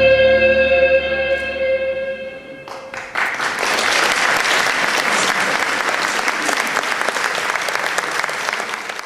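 The song's final held chord rings on and fades away over the first two and a half seconds. Then an audience applauds, dying away near the end.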